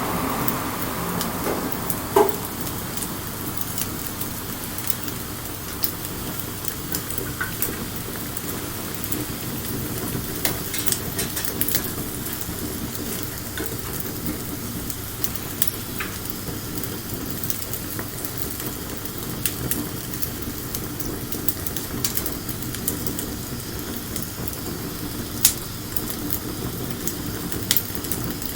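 Wood bonfire crackling over a steady hiss, with scattered sharp pops, the loudest about two seconds in and twice near the end.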